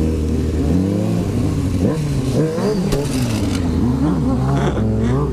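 Sport-bike engine surging up and down unevenly as the bike slides out on wet pavement in a low-side crash. There is clatter and scraping about two to three and a half seconds in. The engine settles back to a steady run near the end.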